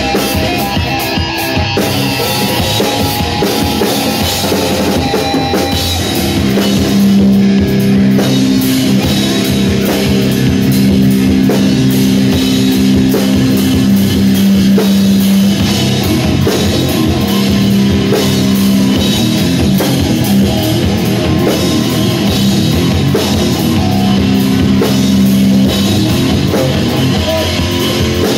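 Electric guitar and drum kit playing a live southern-style metal jam. About six seconds in the music gets a little louder, with long held low notes over steady drumming.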